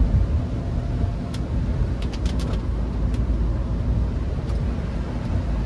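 Steady low rumble of road, tyre and engine noise from a Hyundai HB20 1.6 automatic on the move, with a few scattered sharp ticks clustered in the first half.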